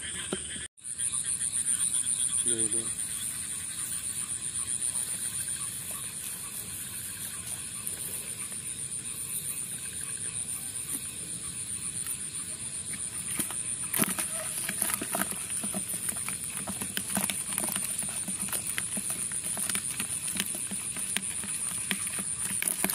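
Frogs croaking outdoors at night after heavy rain, over a steady high-pitched whine. From about halfway through, many sharp clicks and rustles sound over it.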